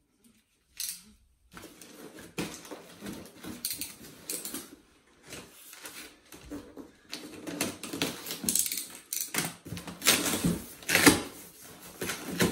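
Flat-pack furniture parts and cardboard packaging being handled: irregular rustling, scraping and knocking, sparse at first and busiest in the last few seconds.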